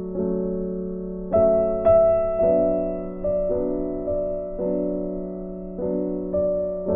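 Background music: soft electric piano playing slow sustained chords, a new chord struck every half second to a second and fading away.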